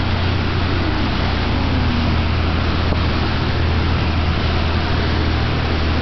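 Steady rush of wind buffeting the microphone high in the air, with a constant low rumble underneath.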